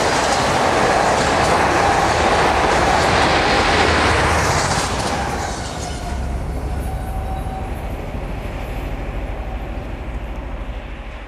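Autorack freight cars of a Union Pacific auto train rolling past on the rails, a steady clattering rumble of wheels on track. About five seconds in, as the last car passes, the sound drops and then fades away into the distance.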